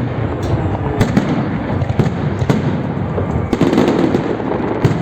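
Fireworks salute: a run of firework bursts, a bang every half second to second, over a steady dense rumble, with a spell of crackling about three and a half seconds in.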